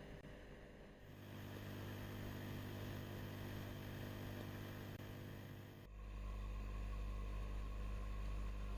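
Septic-tank air compressors (linear diaphragm air pumps) running with a steady electric hum and hiss. The sound changes abruptly about a second in and again near six seconds in, as one unit gives way to another.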